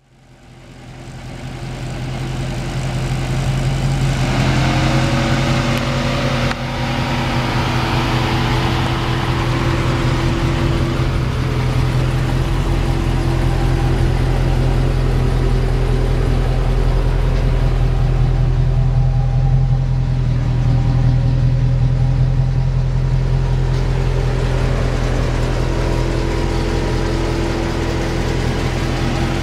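Dodge Challenger SRT8's 392 Hemi V8 idling with a steady, deep exhaust note, fading in at the start. About four seconds in, a higher tone rises and then holds steady over the idle.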